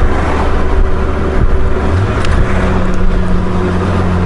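Honda Gold Wing GL1500's flat-six engine running steadily while riding on the road, with a rush of wind and road noise over it; the engine note steps up slightly about halfway through.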